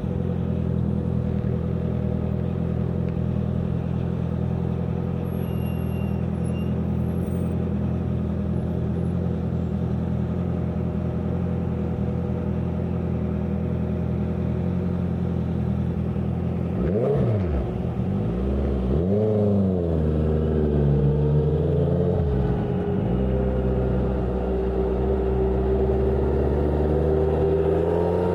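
Honda CBR650F's inline-four engine through a CS Racing exhaust, running at a steady speed. About seventeen seconds in, the revs swing up and down several times over a few seconds, then settle into a note that climbs slowly.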